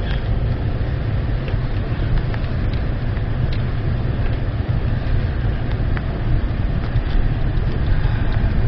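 Acura MDX SH-AWD driving over a rough dirt track: a steady low rumble of engine and tyres, with occasional small clicks and knocks.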